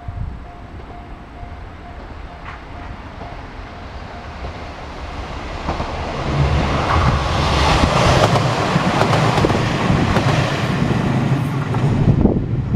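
A Kashima Rinkai Railway diesel railcar approaching and passing close by, its engine hum and wheel noise building from about five seconds in, loudest with a run of wheel clicks over the rails, then dropping away sharply near the end. In the first few seconds a level-crossing alarm dings steadily and fades under the train.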